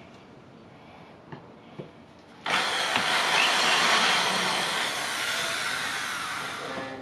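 Power drill boring into a melamine-faced particleboard panel, starting abruptly about two and a half seconds in and running steadily, after a couple of small handling clicks.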